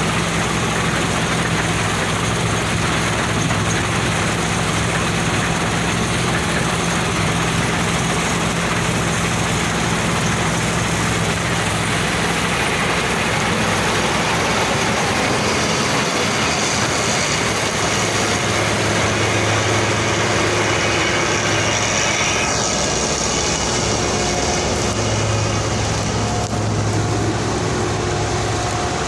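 Deutz-Fahr combine harvester running while cutting wheat: a steady engine hum under the dense noise of the working machinery. The engine note shifts about halfway through.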